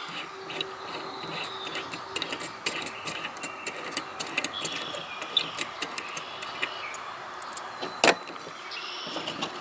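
The burner of a Soviet Primus Touristy camp stove being unscrewed by hand: a run of small metallic clicks and scrapes from the threads, with one louder metal clack about eight seconds in.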